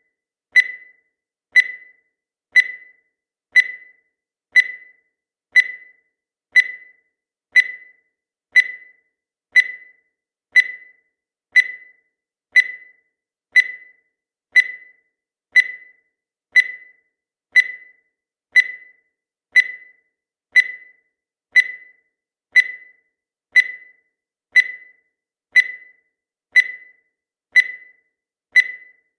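Countdown timer sound effect: a short, high-pitched electronic blip once every second, each one fading away quickly.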